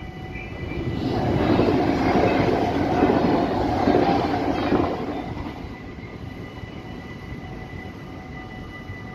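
NS double-deck intercity train passing over a level crossing: the rail noise builds about a second in, stays loud for some four seconds, then fades away. The crossing's warning bells ring steadily underneath.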